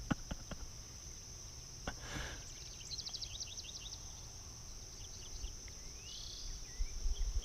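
Insects droning steadily at a high pitch, with a bird chirping in quick runs of short notes from about three seconds in and again near the end. A few faint clicks at the start and a brief rustle about two seconds in.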